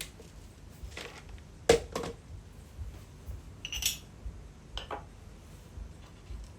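Dishes and cutlery being handled: a few separate clinks and knocks, the loudest nearly two seconds in and a sharp, bright clink about four seconds in.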